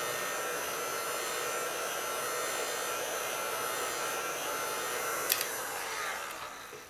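Skil electric heat gun blowing steadily, then switched off with a click about five seconds in, its fan winding down.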